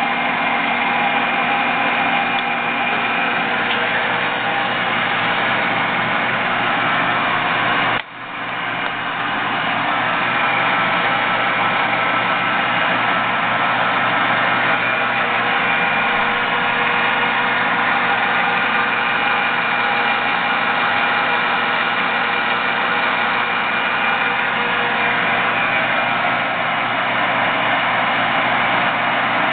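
ENCO 13" x 40" engine lathe running steadily, its motor and gearing giving a constant hum with several steady tones. The sound drops off sharply about eight seconds in and builds back up over a second or two.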